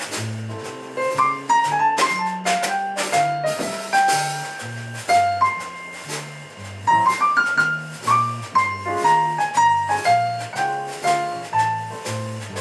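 Live band playing: a keyboard plays a melody of short notes over an electric bass line, with drum kit and cymbal strikes keeping time.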